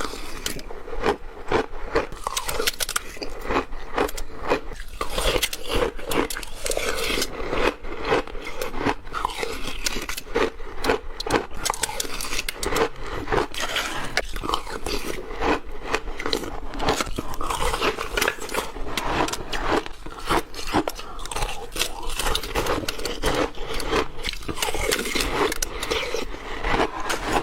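Shaved ice being eaten: dense, irregular crunching and chewing that goes on without a break.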